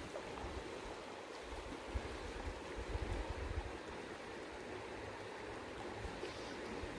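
Flowing river water, a steady rush of current, with a few low bumps about two to three and a half seconds in.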